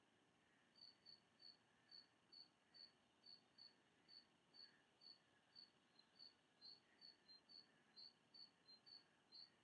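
Faint cricket chirping, short high chirps at a steady pitch repeating about two to three times a second, starting about a second in, over near silence.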